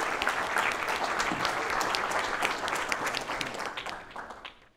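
Audience applauding, fading out in the last second.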